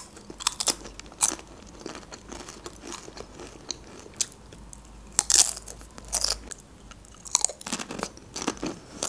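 Crunchy long chip sticks being bitten and chewed, with sharp, irregular crunches that are loudest about five seconds in.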